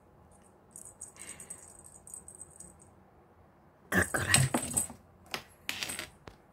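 A cat's claws and paws scrabbling on a corrugated-cardboard scratcher and batting a wand toy: soft scratchy rustles at first, then a burst of loud scraping and knocks about four seconds in, and a few shorter scrapes near the end.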